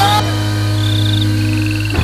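Background music of held chords, with frogs calling over it in short, high-pitched trills of rapid pulses, each about half a second long.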